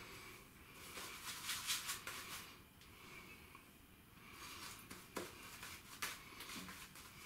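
Silvertip badger shaving brush worked against shaving soap and then over the face, a faint scratchy swishing in spells, with a couple of light clicks about five and six seconds in.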